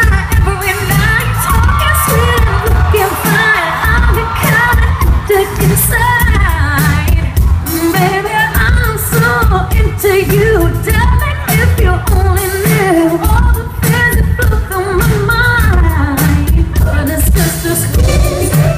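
Live pop concert music: a singer's voice, sliding and ornamenting, over a full band with heavy, pulsing bass.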